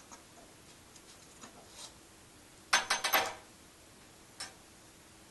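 Metal flange parts being handled and set on a table: a few light taps, then a quick run of sharp metal clinks about three seconds in, one with a short ring, and a single click near the end.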